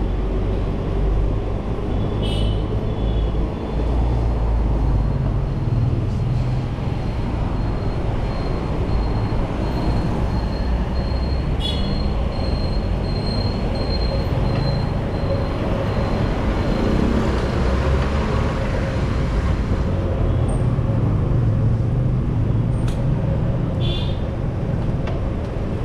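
Steady rush of wind and road noise while riding a bicycle along a city street among traffic, with a few brief high-pitched sounds about two, twelve and twenty-four seconds in.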